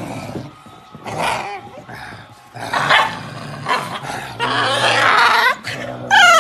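Small dog play-growling and snarling in short rough bursts during rough play-wrestling.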